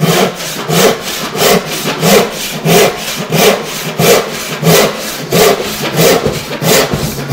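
Hand saw cutting through a wooden board in a steady rhythm of long rasping strokes, about one and a half a second.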